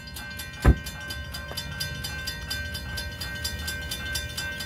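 Railroad crossing bell ringing in rapid, even strokes while the crossing gate arms lower, falling silent near the end once the gates are down. One loud low thump about two-thirds of a second in.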